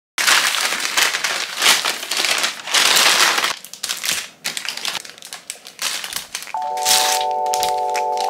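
Loud, irregular crinkling and crackling, dense for the first three seconds or so and then sparser. A gentle chiming music melody comes in about six and a half seconds in.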